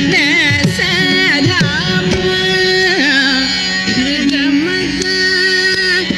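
Carnatic classical music: a voice sings in quick, wavering, ornamented pitch glides over a steady drone, with drum strokes underneath.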